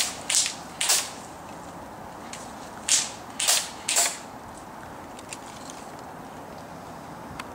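Airsoft rifle shots, single sharp cracks fired about half a second apart: three at the start and three more about three seconds in.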